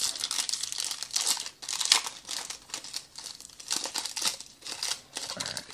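Foil wrapper of a Panini Phoenix football card pack being torn open and crinkled by hand: a run of irregular crackling rustles, the loudest about two seconds in.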